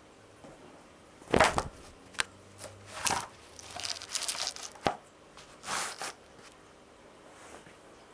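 A carpet square is dropped and pushed into place on a bare floor. A loud thump comes about a second in, then scraping and rustling with a couple of sharp knocks.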